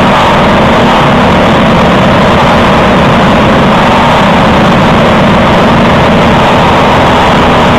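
Briggs & Stratton LO206 single-cylinder four-stroke kart engine running loud and steady at race speed, heard onboard close to the engine, with the engines of the surrounding pack of karts mixed in.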